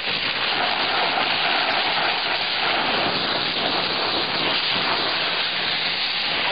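High-pressure steam jet from a steam car-wash gun hissing steadily as it blasts the windshield cowl and wiper area.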